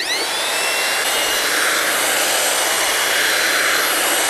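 Corded 1/2-inch drill with a paddle mixer blade spinning up and running steadily, churning mortar of sand and type S cement in a plastic bucket. The motor's whine rises as it spins up at the start, then holds steady under the churning of the mix.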